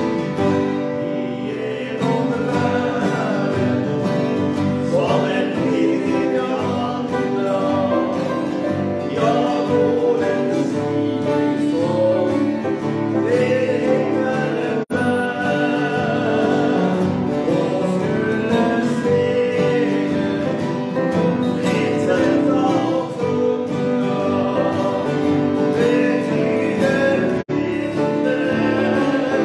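Two acoustic guitars playing a Norwegian Christian song, with men's voices coming in with the melody about two seconds in. The sound cuts out for an instant twice, near the middle and near the end.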